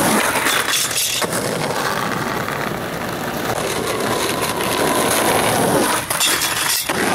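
Skateboard wheels rolling on rough parking-lot asphalt, a steady gritty rumble, with sharp wooden clacks of the board about a second in and again near the end.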